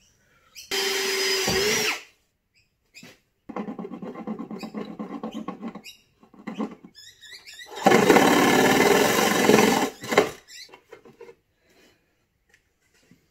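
Handheld power tool cutting a hole through the plastic rear wall of a motorcycle top case, run in three bursts of one to two and a half seconds each with short pauses between; the third burst is the loudest.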